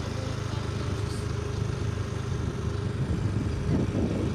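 A steady low engine hum. About three quarters of the way through, a rougher low rumble joins it, like wind on the microphone.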